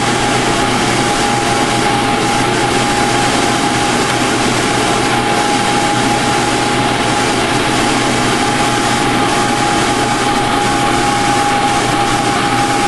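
A machine running steadily, a constant noisy drone with one steady whine above it.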